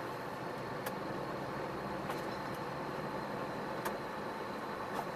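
Iveco Stralis truck driving at a steady pace, its diesel engine running evenly under continuous road noise, with several short sharp clicks scattered through.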